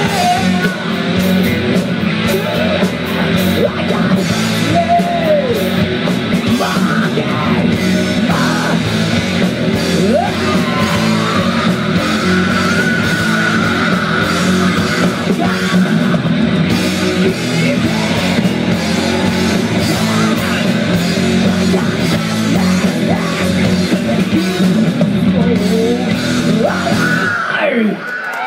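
Live hard rock band playing loud through a PA, with distorted electric guitars, drums and a singer. The music cuts off shortly before the end.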